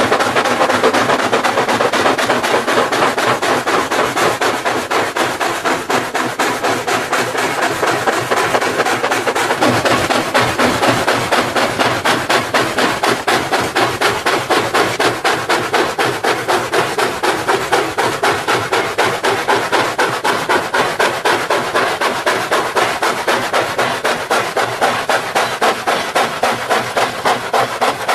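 Steam locomotive exhaust beating in quick, even chuffs as the engines haul a heavy freight train of loaded coal hoppers.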